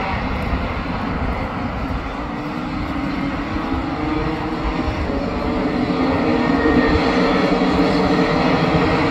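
A pack of Rotax Max 125cc two-stroke racing karts running on track, their engines droning together and growing steadily louder over the last few seconds.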